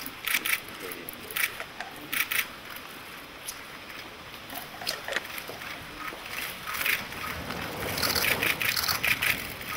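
Press camera shutters clicking in short bursts, a few at a time, with a denser run near the end.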